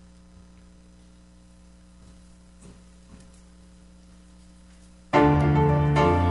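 Quiet room with a few faint shuffles, then about five seconds in a piano accompaniment starts loudly, playing the introduction to a choir's praise medley.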